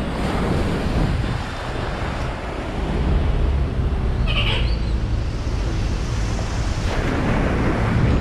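Waves washing onto a rocky seawall under heavy wind buffeting on the microphone, a steady rumbling rush. About halfway through comes a brief high, rising squeak.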